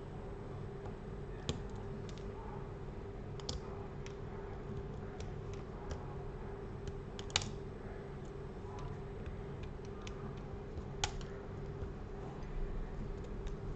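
Scattered small clicks and taps of a precision screwdriver and tiny phone screws being backed out and set down, a few seconds apart, the loudest about seven seconds in. A steady low hum runs underneath.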